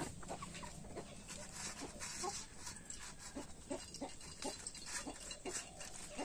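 Domestic chickens clucking softly in short, repeated calls, about two a second, with light clicks among them.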